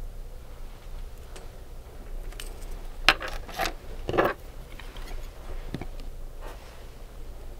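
A few sharp clicks and taps of small hard manicure tools and bottles being handled, the loudest clustered about three to four and a half seconds in, then a softer knock; a steady low hum underneath.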